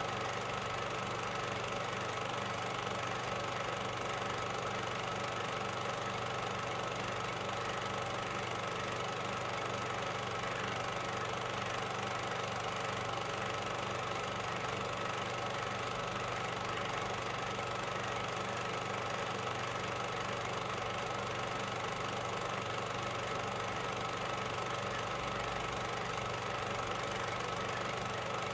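A small motor running steadily: an even hum with a constant high whine over a low drone, unchanging throughout.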